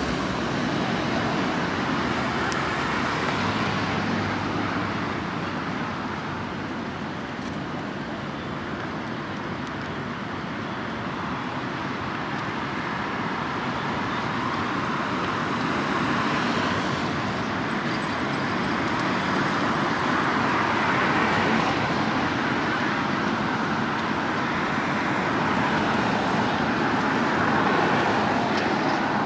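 City street traffic: cars passing close by one after another, their tyre and engine noise swelling and fading over a steady background hum of traffic.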